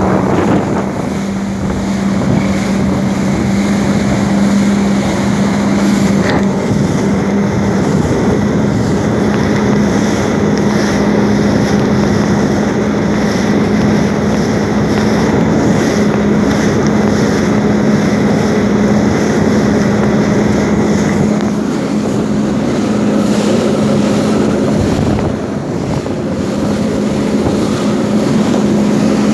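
Jet ski engine running at steady speed while towing a banana boat, a constant drone holding one pitch, with wind on the microphone and water rushing past the hull.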